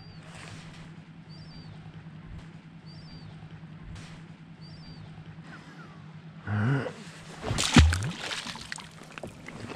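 An Australian salmon released back into the harbour, splashing hard at the surface beside the kayak about eight seconds in, just after a brief noise of the fish being handled. Before that, short high chirps repeat about every second and a half over a faint low hum.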